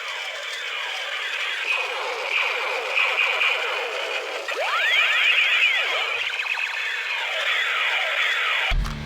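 Electronic sound effects from a battery-powered toy's small speaker: many quick rising and falling pitch sweeps overlapping one another, thin and without bass. Near the end it gives way abruptly to music.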